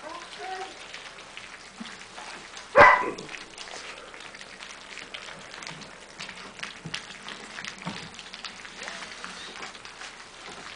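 A litter of four-week-old German Shepherd puppies lapping and chewing wet food from a drain-pipe trough: a dense run of small wet smacks and clicks, like rain pattering. About three seconds in, one pup gives a short, loud yelp.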